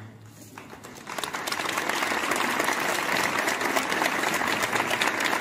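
Crowd applauding, the clapping starting about a second in, quickly swelling and then holding steady.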